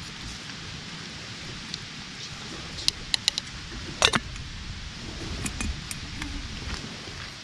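Metal clinks of a camp cooking pot: a few quick clinks of a spoon against the pot, then a louder clink as the metal lid is set on about four seconds in, followed by lighter clinks of the lid and folding wire handle, over a steady background hiss.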